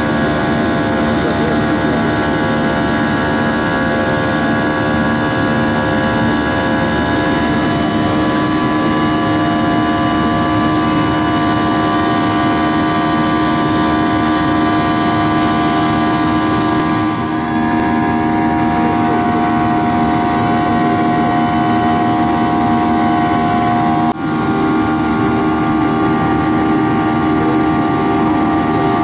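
Cabin noise of a Boeing 737-800 climbing after takeoff, heard from a window seat by the wing: the CFM56-7B turbofans' steady drone, with several steady whining tones over a rushing noise. The tones shift slightly about 17 seconds in, and again with a brief dip about 24 seconds in.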